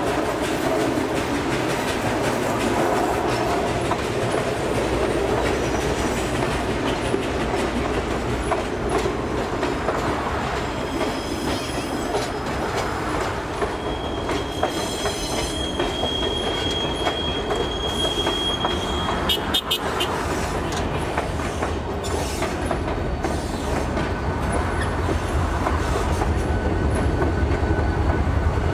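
Excursion train rolling past with its wheels clattering over the rail joints. A steady high-pitched wheel squeal is held for about five seconds in the middle, and a deeper rumble builds near the end.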